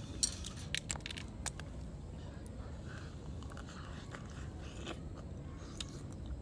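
A person eating grilled clams: several sharp clicks in the first second and a half, then a few fainter ones, over a steady low hum.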